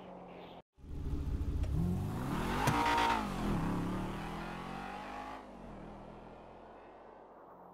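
Sports car engine revving, rising in pitch to a loud peak about three seconds in, then falling and fading away. The sound breaks off briefly for a moment less than a second in before the engine comes in.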